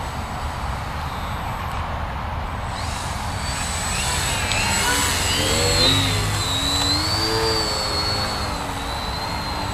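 Electric motor and propeller of a VisionAire RC plane flying on a 4S lipo, whining in pitch that slides up and down as it passes and the throttle changes. It grows loudest about halfway through, over a steady low rumble.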